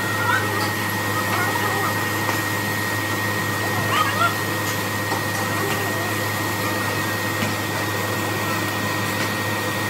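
Steady whirring roar of a foundry melting furnace's air blower, with a low hum and a thin high whine, as molten metal is tapped into a ladle. Brief men's calls come through now and then.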